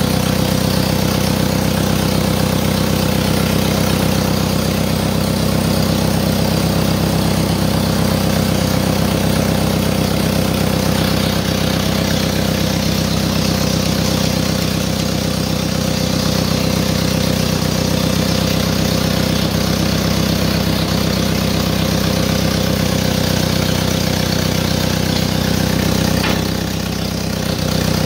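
1955 Massey Ferguson TO-35's four-cylinder gasoline engine idling steadily as it warms up, circulating fresh gear oil through the transmission and hydraulics. The level dips briefly near the end.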